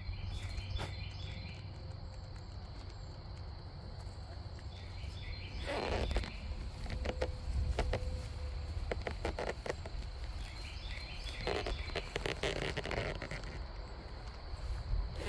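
Footsteps rustling through grass, with faint chirping and a steady low rumble underneath.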